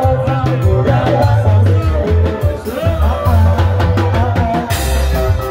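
Loud live band music with a steady bass line, drum kit and a melody line, with singing.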